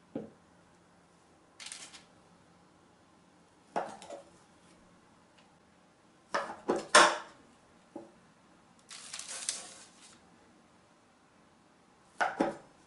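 A kitchen knife slicing a rolled cinnamon-roll dough log on a wooden table, its blade knocking the tabletop, as the slices are set down in a metal baking tray. The sound is scattered knocks and clatters, the loudest cluster a little after halfway, with a brief rustle about two-thirds through.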